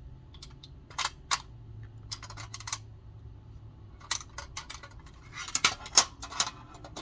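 Small glass perfume bottles clinking and tapping against each other and their container as they are packed in: a few separate clicks, then a quick cluster of clinks toward the end.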